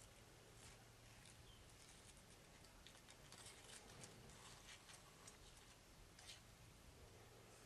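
Near silence with faint scattered ticks and rustles, a few a little louder in the middle and near the end, over a faint low steady hum.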